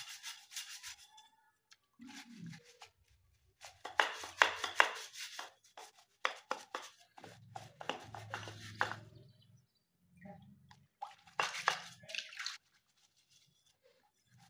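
A hand brush scrubbing a wet cast-aluminium motorcycle brake plate over a basin of water, in several bursts of quick rasping strokes with short pauses, as grease and dirt are scrubbed off.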